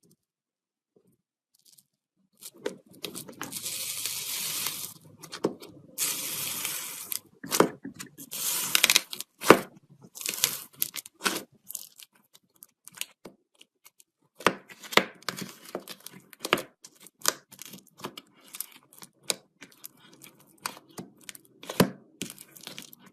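Iceberg slime being handled: its dried crust crackles and tears in three long stretches, then gives many short crunches and sticky pops.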